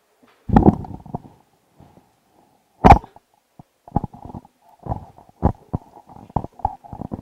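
Handling bumps and knocks on a handheld microphone: irregular thumps, the two loudest about half a second and about three seconds in, with a run of smaller knocks near the end.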